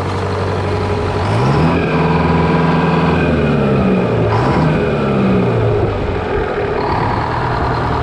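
GM 4-71 two-stroke supercharged diesel engine (the "Screaming Jimmy") running, revved up twice and dropping back to a steady idle each time.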